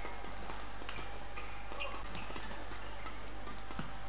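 Badminton rally: crisp racket strikes on a shuttlecock, several hits coming quickly about half a second apart, with short squeaks of shoes on the court floor over a low steady hall hum.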